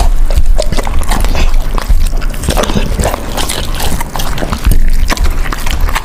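Dog eating raw meat close to the microphone: wet chewing, smacking and slurping, with many short sharp clicks of bites.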